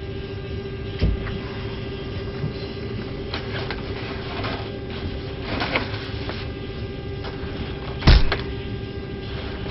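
Cardboard box and bag being shoved and scraped into an airliner's overhead bin, over a steady cabin hum with one constant tone. There is a small knock about a second in, scraping and rustling in the middle, and a loud thump about eight seconds in as the bag is forced in.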